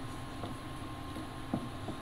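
Wooden spoon stirring pasta in a skillet, giving three light knocks against the pan over a steady hum.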